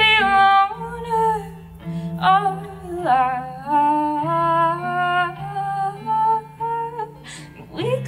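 A woman singing a slow melody of long held notes with vibrato, over guitar chords.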